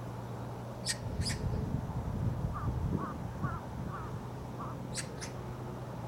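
Birds calling: a white wagtail's sharp two-note chirps, heard twice (about a second in and again about five seconds in), with a run of five shorter, lower calls from another bird in between. Under them are a steady low hum and a brief low rumble.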